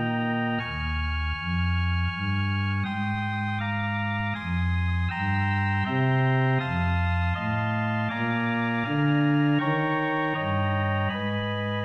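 Solo organ playing slow sustained chords, soft (pp) on a smooth, gentle stop, with low pedal notes beneath; the chords change about once a second.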